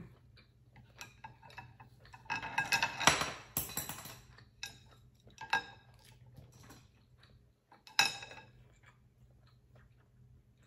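Wooden chopsticks and a wooden spoon clinking, knocking and scraping against a black earthenware pot of soft tofu stew and the glass plates. The clatter is busiest about two to four seconds in, with single sharp, ringing clinks about five and a half and eight seconds in.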